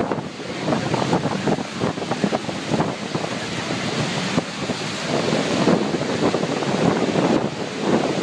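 Rushing noise of Niagara Falls crashing onto the rocks and churning the river, with wind gusting and buffeting the microphone in irregular surges.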